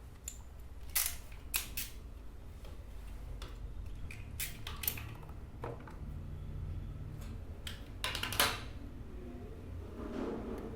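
Sharp snips and clicks from a small cutting hand tool working on cable, several spread irregularly, with a loud pair about eight seconds in, over a steady low hum.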